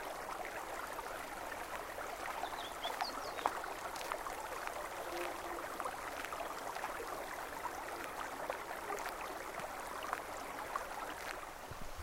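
Rocky river rushing steadily over stones, with a few short bird chirps about three seconds in.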